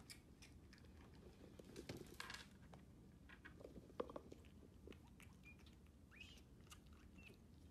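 Baby bobcat suckling from a milk bottle: faint wet sucking and smacking clicks, with a few short high squeaks near the end.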